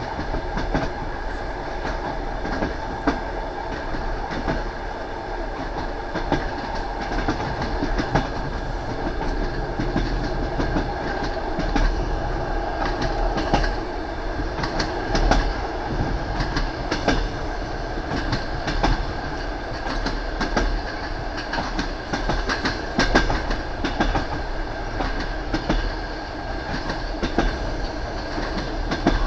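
A train running along the track: a steady rumble with the clatter of the wheels knocking over the rail joints, and many sharp clicks through it.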